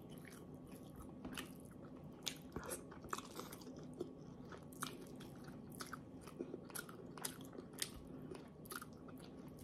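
Close-miked eating by hand: a person chewing soft fish and rice, with many small wet mouth clicks and smacks at irregular intervals. A faint steady hum lies underneath.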